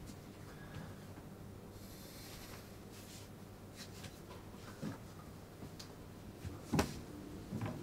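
Quiet room with soft rustling, light footsteps and a few small knocks as a person moves about, with one sharper knock about seven seconds in.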